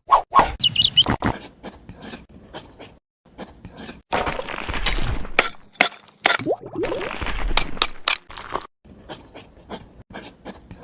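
A run of sharp clicks and knocks of small hard objects being handled, with two stretches of scraping, each lasting over a second, about four and six seconds in.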